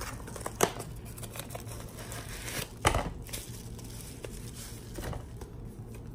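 Clear plastic shrink-wrap on an eyeshadow palette crinkling and tearing as it is unwrapped by hand, with a few sharp snaps, the loudest just under three seconds in.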